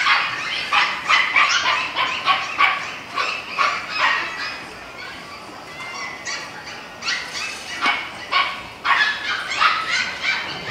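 Dogs barking and yapping in quick, high-pitched bursts, with a lull in the middle and a few whimpers.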